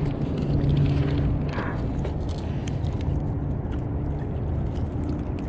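A steady low rumble with a faint low hum, and a few light crunches of footsteps on shoreline gravel.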